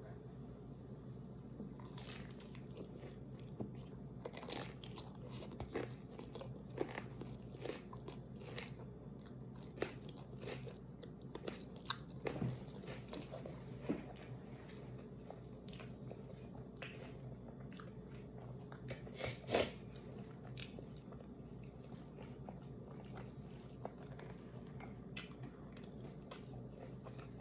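A person biting and chewing a mouthful of loaded nachos, the tortilla chips crunching in irregular crackles, with one louder crunch about two-thirds of the way through.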